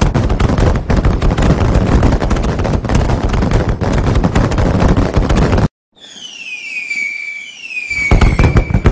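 Fireworks going off in a dense, rapid barrage of crackles and bangs. A little over five seconds in, the sound cuts off abruptly. A few repeated falling whistles follow before the barrage starts again near the end.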